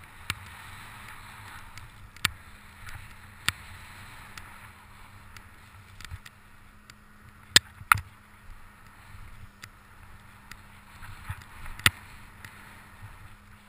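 Skis hissing and swishing through deep powder snow, with a handful of sharp knocks; the loudest are two knocks close together near the middle.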